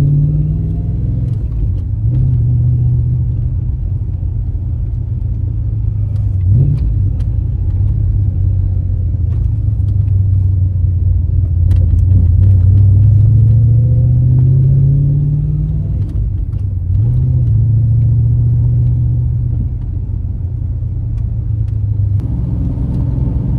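Holden 5-litre 304 V8 of a 1995 VS SS Commodore running on the road. Its engine note climbs steadily under throttle and drops back several times as the T5 manual is shifted.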